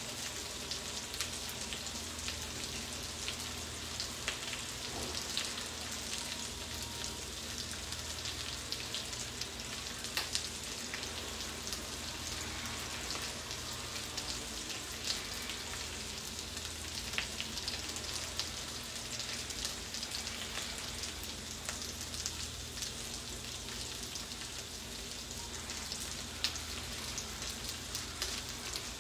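Sardines frying in oil in a cast-iron skillet: a steady sizzle with scattered small crackles and pops.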